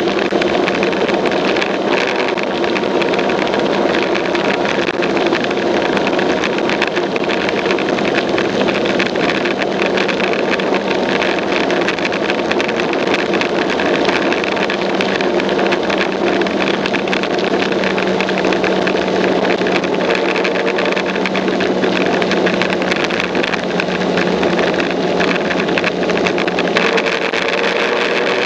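Motor scooter engine running steadily at cruising speed, with wind and road noise rushing over the machine. A faint rising tone comes in near the end.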